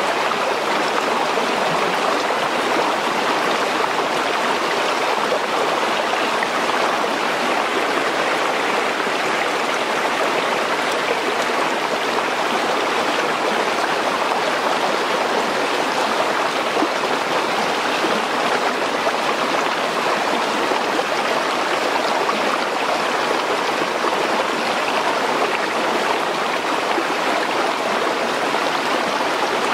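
Stream water flowing steadily over rocks, an even rushing noise.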